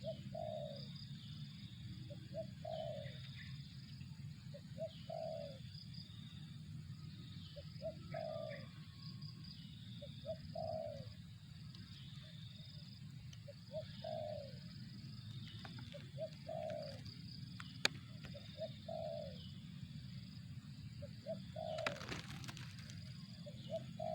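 Spotted dove (tekukur) cooing a repeated phrase about every three seconds, nine times in all: one or two short notes, then a longer falling coo. Higher bird chirps, a steady low hum and a sharp click sound with it.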